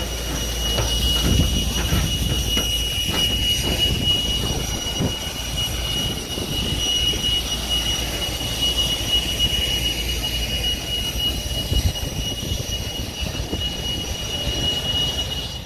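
Airliner jet engines running, with a steady high whine over a low rumble.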